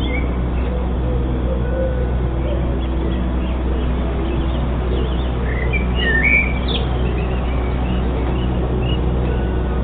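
Forest birds chirping and calling, with a cluster of calls about six seconds in, over a steady low hum.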